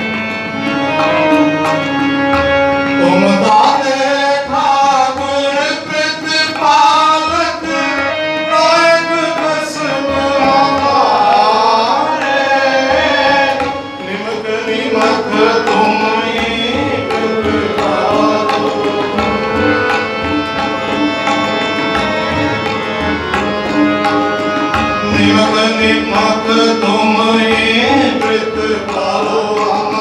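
Sikh shabad kirtan: a Jamuna harmonium playing sustained chords and melody with tabla drumming, and a voice singing over them.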